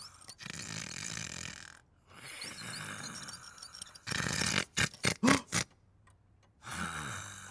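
Cartoon character's non-speech vocal noises: repeated rasping breaths, each with a short rising-and-falling groan. A quick run of louder grunts comes about four to five and a half seconds in.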